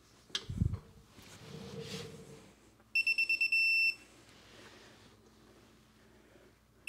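Digital torque wrench beeping: a quick run of short, high beeps, then one longer beep about three seconds in, signalling that the set torque has been reached on the oil drain bolt. Before it, a dull thump and faint handling of the wrench.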